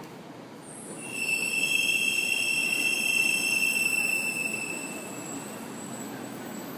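Shinkansen train running with a steady rumble. About a second in, a high-pitched steady squeal rises over it, holds for a few seconds and then fades.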